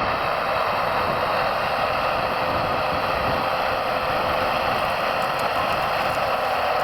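Steady mechanical whirring of RC scale-model construction machinery at work, at an even level throughout.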